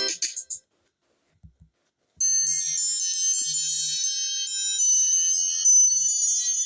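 Built-in iPhone ringtone on iOS 16 playing: a bright, high-pitched chiming melody of quick tinkling notes that starts about two seconds in. Before it, the previous ringtone cuts off about half a second in, leaving a short gap with a couple of faint taps.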